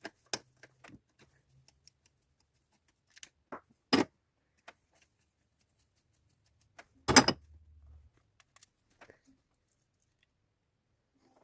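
Scattered light clicks and clinks of tools and metal parts being handled during engine repair work, with a louder knock about four seconds in and the loudest knock about seven seconds in, followed by a brief low rumble.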